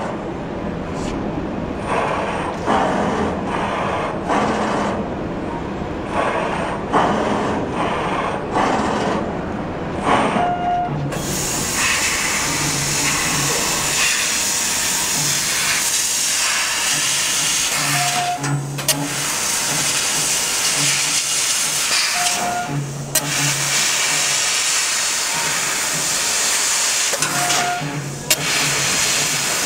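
Nd:YAG laser cutting machine cutting steel sheet: a steady hiss of gas blowing through the cutting head, growing fuller about a third of the way in. A short low hum with a higher tone comes back every few seconds.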